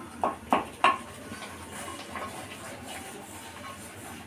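Wooden spatula stirring a thick masala in an aluminium kadhai. It knocks against the pan three times in the first second with a short metallic ring, then scrapes more softly.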